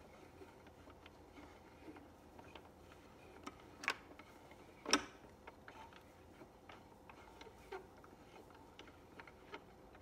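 Tabletop automaton's mechanism working, with faint irregular clicks and ticks and two louder clicks about four and five seconds in.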